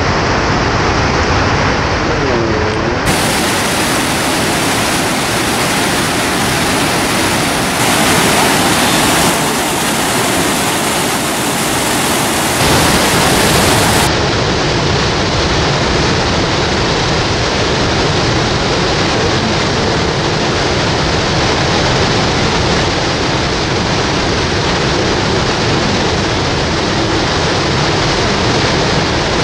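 Steady rushing of whitewater: the Merced River's rapids and Vernal Fall pouring over granite. It is loud throughout, and its tone shifts abruptly a few times.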